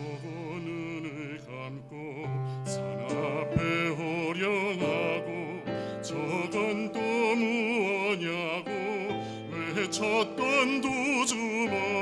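Small choral ensemble singing in a classical, operatic style, several voices together with vibrato on sustained notes, over a steady accompaniment.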